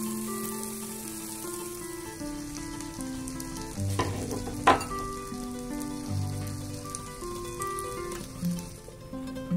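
Diced potato, carrot and peas sizzling in olive oil in a non-stick frying pan, with a couple of sharp scrapes and knocks from stirring about four seconds in; the sizzle fades near the end. Plucked-string background music plays throughout.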